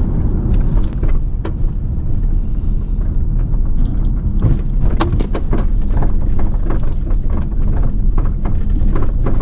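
Road noise inside a moving vehicle's cabin: a steady low rumble, with scattered short clicks and knocks.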